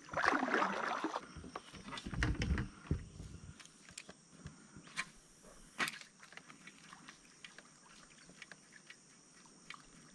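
Kayak paddle strokes splashing in the water for the first few seconds, then quieter, with two sharp clicks about a second apart and faint scattered ticking.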